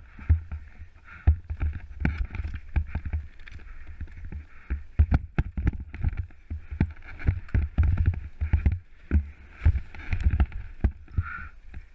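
Scott Gambler 10 downhill mountain bike clattering over a rough, rocky dirt trail, heard from a helmet-mounted camera: a steady low rumble with frequent, irregular sharp knocks and rattles as the bike hits rocks and bumps.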